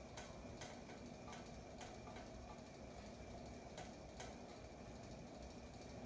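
Hampton Bay Gazebo Plus 52-inch ceiling fan running on high: a faint steady whoosh of moving air and motor hum, with light ticks, several in the first two seconds and two more about four seconds in.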